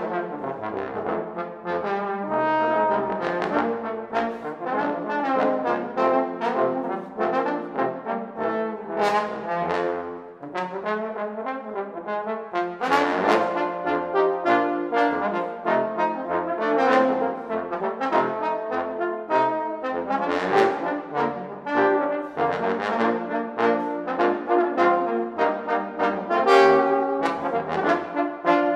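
Trombone quartet playing in harmony, several trombones sounding together in a lively passage of many short notes.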